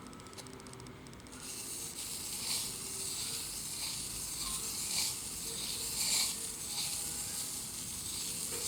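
P1500-grit sandpaper rubbing across a CPU die in repeated strokes, a scratchy hiss that starts about a second and a half in and swells about twice a second.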